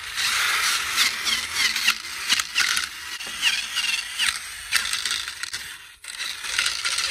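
Cordless drill spinning a wire wheel brush against old painted wooden balusters, stripping off the flaking paint: a harsh steady hiss with short high-pitched chirps, pausing briefly about six seconds in.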